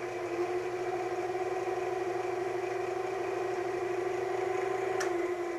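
JET wood lathe's electric motor and drive running with a steady hum. About five seconds in a switch clicks and the pitch starts to drop as the lathe is switched off and begins to spin down.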